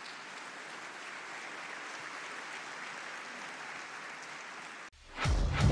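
Audience applauding steadily, cut off suddenly near the end as music begins.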